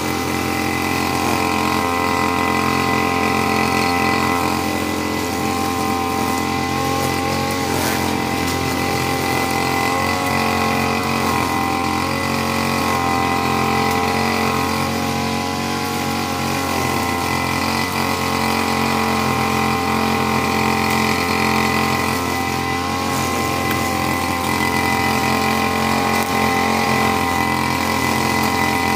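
Backpack brush cutter's small petrol engine running steadily at working speed while cutting grass, its pitch wavering slightly now and then under the load.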